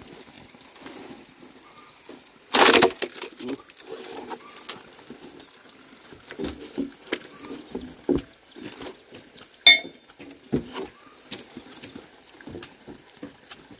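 Scattered knocks and clatters, with one loud, noisy crash about two and a half seconds in and a sharp clink a little before ten seconds.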